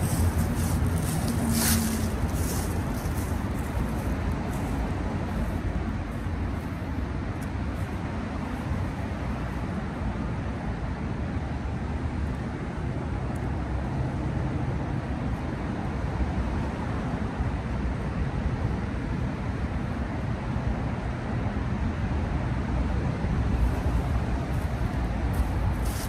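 Steady hum of distant road traffic, with a low rumble that may include wind on the microphone. A few sharp crackles in the first couple of seconds.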